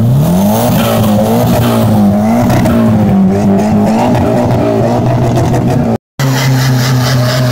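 Car engine revved hard: the note climbs steeply, then wavers up and down at high revs as the throttle is worked. After a brief break in the sound near six seconds, it is held at a steady high rev.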